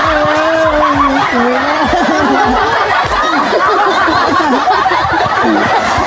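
Several men laughing and whooping at once, with one voice holding a long cry in about the first second.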